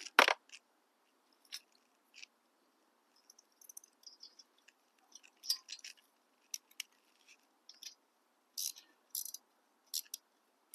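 Metal hand tools and parts being handled: one sharp knock just after the start, then scattered light clicks, taps and short scrapes.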